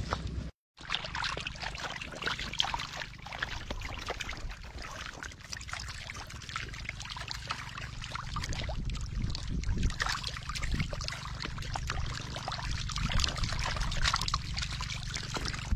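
Shallow muddy water splashing and trickling as a mass of catfish wriggle and thrash in a drained ditch, a dense run of small splashes and crackles.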